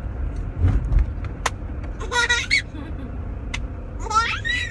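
A baby laughing in two short high-pitched squealing bursts, one about two seconds in and a longer one near the end, over a steady low rumble.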